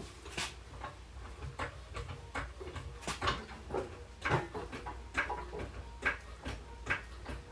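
A run of short light clicks and knocks, irregular at first and then about two or three a second, from hands-on work at a car chassis, over a low steady hum.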